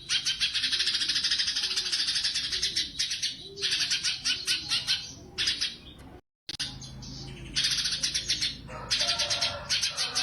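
Cucak cungkok songbird singing long runs of very fast, high chattering trills, the rapid-fire 'tembakan' bursts prized in contest birds. The sound cuts out briefly about six seconds in, then the trills resume.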